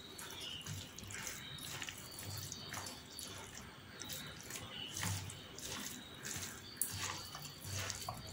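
A hand squishing and kneading chicken pieces in a wet marinade of sliced onion, spices, oil and lemon juice in a steel pot. Soft, irregular squelches, with a few light clicks of the hand or chicken against the pot.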